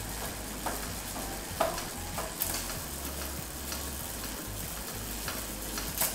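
Bicycle chain running over a spinning Shimano 6-speed freewheel and through the rear derailleur, giving a steady rattling hiss with a few sharp clicks.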